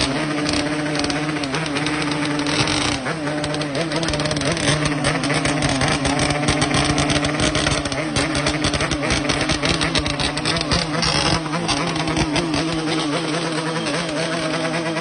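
Yamaha RX-King motorcycle's two-stroke single-cylinder engine running with an uneven, snore-like rumble, with louder, rougher stretches about three and eleven seconds in.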